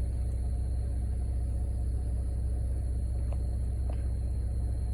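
Vehicle engine idling with a steady low rumble, with a couple of faint ticks about three and four seconds in.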